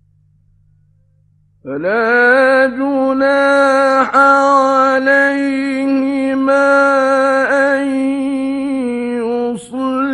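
A faint steady hum, then about two seconds in a man's voice begins a long melodic Quran recitation in the ornamented mujawwad style. He holds one steady pitch with wavering turns and breaks off briefly near the end.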